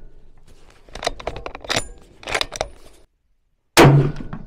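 Weatherby Vanguard Talon bolt-action rifle in .300 Win Mag: the bolt is worked with a run of small metallic clicks and clinks, then a single loud shot near the end.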